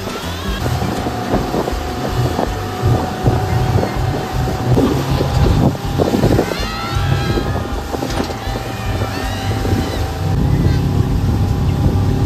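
Motorboat engine running under load while towing a banana boat through choppy water, with wind buffeting the microphone and water splashing.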